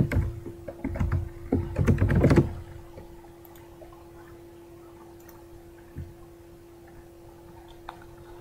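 Computer keyboard typing, a quick run of keystrokes over the first two and a half seconds, then a steady faint hum with a couple of single clicks.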